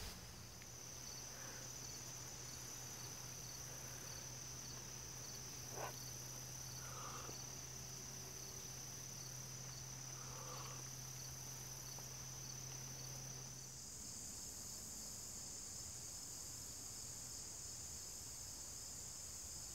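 Faint, steady chorus of insects trilling on a high, continuous pitch, with a low hum underneath. About fourteen seconds in, the trill steps a little higher and the hum stops.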